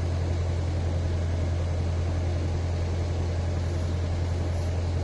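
Narrowboat's diesel engine running steadily under way, a constant low drone with no change in pace.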